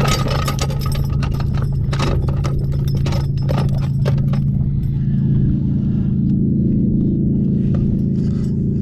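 Quick metallic clicks, rattles and scrapes of pliers and a spinnerbait being worked out of a pickerel's mouth, busiest in the first four seconds and thinning out after. Under it, a steady low motor hum.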